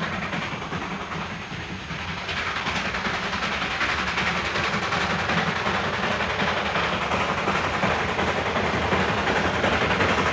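Darjeeling Himalayan Railway's small 2-foot-gauge steam locomotive and train running, the sound growing louder from about two seconds in as it draws nearer.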